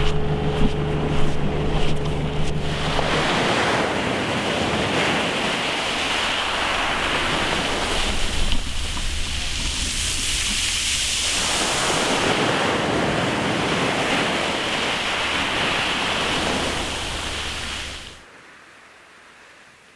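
Surf washing on the shore with wind on the microphone, with the steady hum of a car engine carrying over for the first three seconds. The sound drops away sharply near the end.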